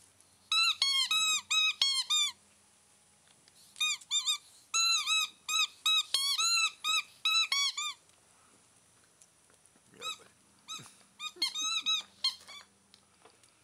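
Squeaky dog toy being squeezed over and over by a wire-haired fox terrier biting it, in three runs of quick squeaks that each rise and fall in pitch; the last run is weaker and more broken up.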